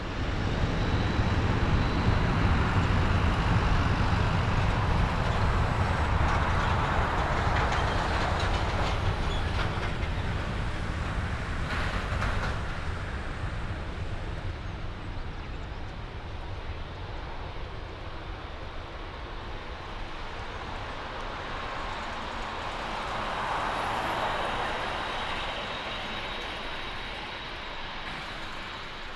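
Twin-engine jet airliner, a Japan Airlines Boeing 767, on its takeoff roll at full thrust: a deep rumble with a thin steady whine over it, loudest in the first few seconds and then slowly fading as it moves away down the runway, with a smaller swell late on.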